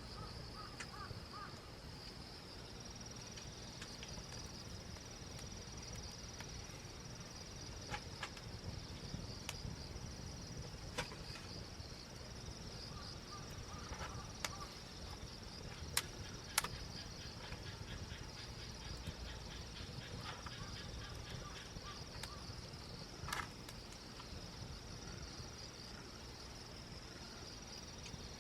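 Insects, crickets by the tags, singing in a steady high continuous trill, with a handful of sharp pops from a wood campfire crackling, the two loudest close together about midway.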